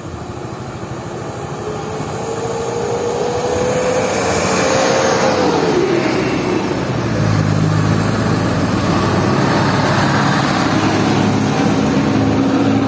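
A bus engine growing louder as it draws near. A thin whine rises slightly and then falls away about five or six seconds in, and after that a steady, loud, low engine rumble continues.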